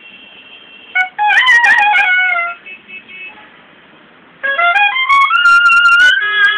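Solo clarinet playing a slow alaap. A short ornamented phrase comes about a second in, then a pause, then a note slides upward into a long held tone.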